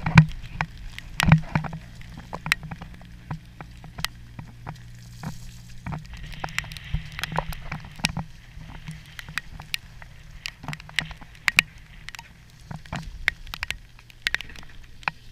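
A boat's engine running with a steady low hum, under many irregular sharp ticks and knocks from rain and the camera being handled on the wet deck.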